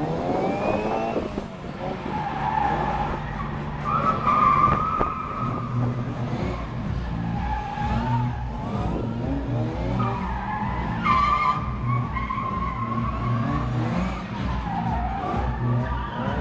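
Classic Mini saloon's A-series four-cylinder engine revving up and down under hard driving, with its tyres squealing repeatedly as it slides tightly around the cones; the longest squeals come about four seconds and eleven seconds in.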